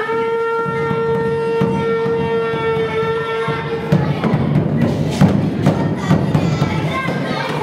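Animal horn blown in one long, steady note lasting about four seconds, followed by a fast run of low thumps.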